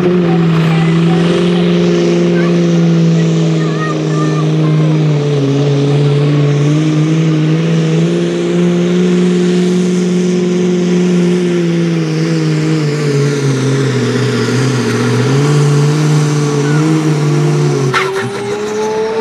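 Diesel engine of a sport-class pulling tractor running hard under load as it drags the weight sled. Its pitch sags lower toward the end of the pull. Near the end there is a sharp click, and then the engine revs climb.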